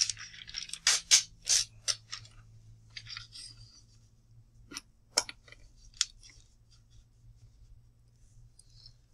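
Sheets of lined notebook paper rustling and crackling as they are lifted, folded back and pressed flat. A dense run of sharp crinkles fills the first two seconds or so, followed by a few scattered crackles, over a faint low hum.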